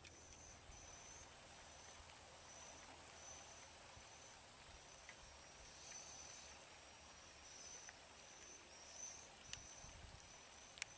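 Faint insects chirping: a steady high buzz with a shorter high chirp repeating about every three quarters of a second, over the soft patter of light rain on water. Two sharp clicks near the end.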